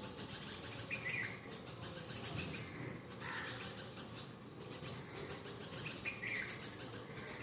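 Background birds chirping in short calls, over a fast, even ticking trill of insects.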